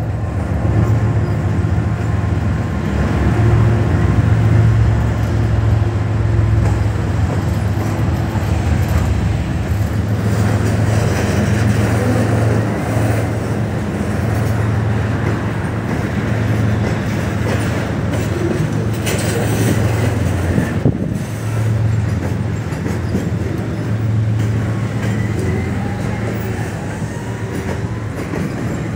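Double-stack container freight train passing close below, its wagons making a steady low rumble on the rails.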